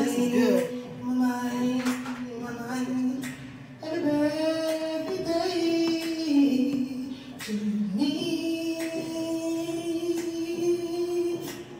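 A woman singing without accompaniment, holding long notes in a few phrases and stepping between pitches; the singing stops just before the end.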